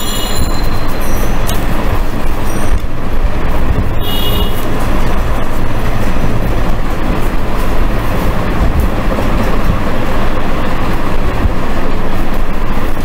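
Loud, steady rumbling noise with a low hum, with a couple of brief high squeaks near the start and about four seconds in.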